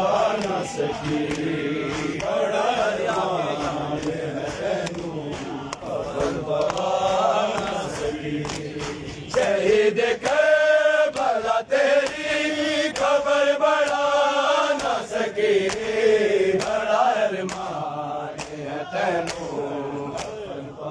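A group of men chanting a noha (Shia lament) together, with sharp slaps of hands beating chests (matam) under the voices. About ten seconds in, the chanting grows louder and higher for about five seconds, then eases back.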